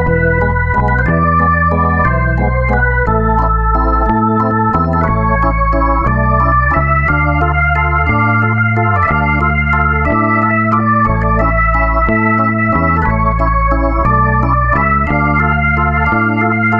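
Background music: sustained chords over a bass line that steps to a new note about once a second.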